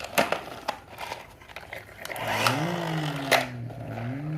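A few sharp plastic clicks from a toy auto rickshaw being handled, then a pitched whirring hum that rises, falls slowly over a couple of seconds and rises again near the end.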